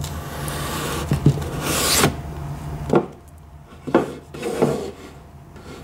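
Cardboard outer sleeve of a watch box sliding off the inner box, a long rubbing hiss that stops about two seconds in. Then three light knocks as the boxes are set down on a wooden table.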